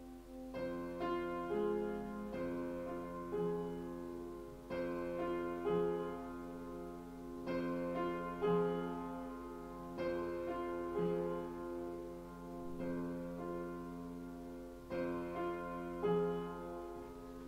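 Sampled piano in FL Studio playing a slow phrase in F minor. Bass notes or chords are struck every two to three seconds with melody notes over them, each note ringing on and fading.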